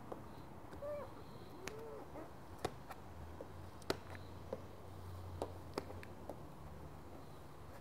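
Squeegee and fingers working wet paint protection film, pressing out the tack solution: short squeaks near the start and light scattered clicks and taps throughout.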